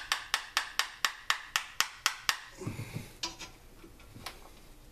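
A hand tool working on the two-stroke scooter engine's parts makes a run of about ten sharp, evenly spaced clicks, about four a second. About two and a half seconds in, the clicks stop and a few duller knocks of metal parts being handled follow.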